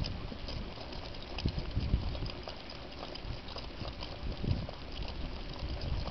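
A three-dog team trotting in harness, pulling a dog cart over asphalt: the patter of paws and the rolling rumble of the cart, with irregular low thumps and light clicks.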